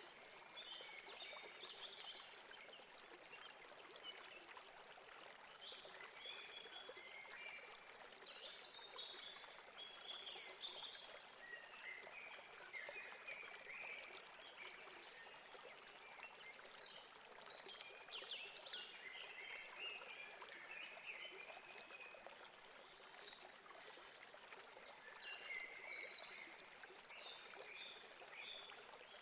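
A stream running steadily over rocks, with small birds chirping and trilling in short phrases throughout.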